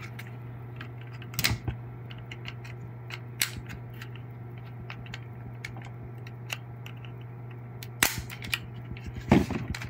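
Plastic clips on a car AC unit's housing snapping loose as a 90-degree pick tool pries them apart: about four sharp snaps, with lighter ticking and plastic handling between them.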